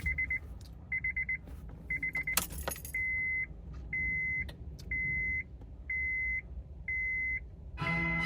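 Electronic warning chime beeping at one high pitch about once a second: first as quick stuttering beeps, then, from about three seconds in, as plain single beeps. A brief rattle about two and a half seconds in, and music comes on through the car speakers near the end.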